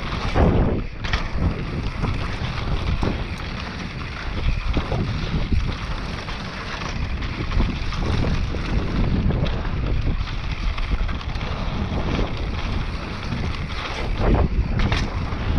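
Mountain bike descending a dirt trail: wind rushing over the microphone over the rumble of the tyres, with frequent knocks and rattles from the bike.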